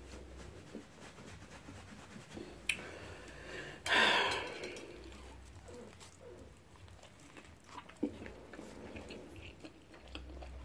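A person biting into and chewing an avocado cheeseburger close to the microphone: soft wet chewing and mouth clicks, with one louder noisy burst about four seconds in.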